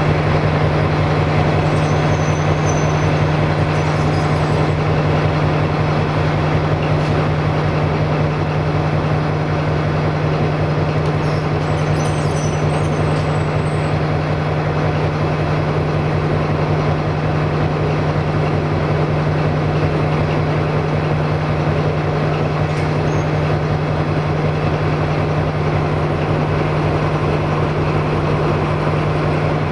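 MÁV class M41 diesel-hydraulic locomotive's V12 diesel engine running steadily, a deep even drone with a rumbling undertone.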